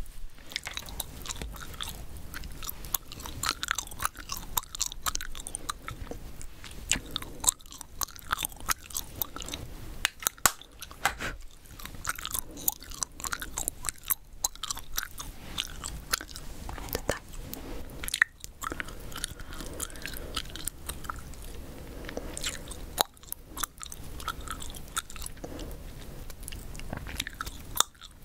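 Chewing gum close to the microphone: a continuous run of irregular wet clicks and smacks.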